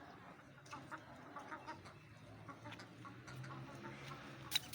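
Chickens clucking quietly while pecking, with many light scattered ticks and one sharper click near the end.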